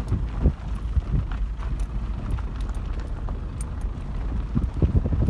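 Steady low rumble of a vehicle driving, with wind buffeting the microphone.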